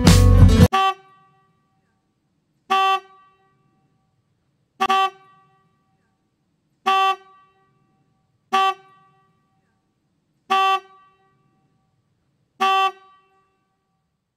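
A vehicle horn giving seven short, identical toots about two seconds apart, with dead silence between them.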